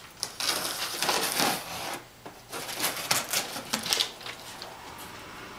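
A cardboard shipping box being opened by hand: packing tape torn and flaps pulled back, a run of irregular scraping and rustling strokes that dies down about four and a half seconds in.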